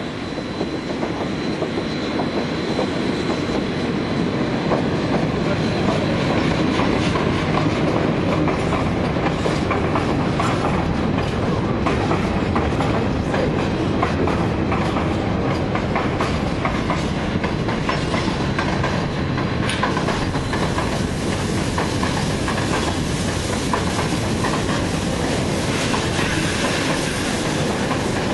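Train wheels rolling on the rails close by, clattering over the rail joints; the noise builds over the first several seconds and then holds steady.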